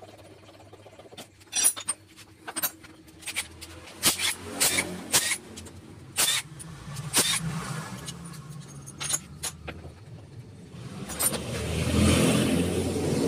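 Metal tools working the bolts of a motorcycle's right-side engine cover: sharp clicks and clinks of a wrench and ratchet on the bolts, with a few short bursts of a cordless impact wrench. A rushing noise swells up near the end.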